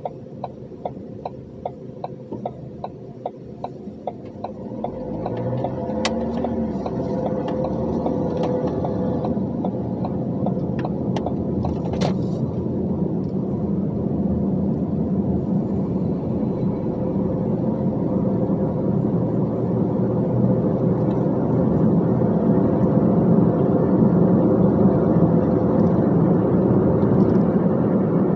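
Dump truck's diesel engine and cab. A turn signal clicks regularly, about two or three times a second, for the first four seconds. Then the engine revs up as the truck gets under way and runs on steadily, growing gradually louder, with a couple of sharp knocks along the way.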